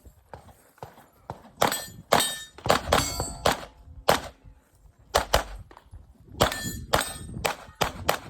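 A string of about a dozen handgun shots in quick succession during a USPSA practical shooting stage, with a short lull near the middle. Several shots are followed by the ring of steel targets being hit.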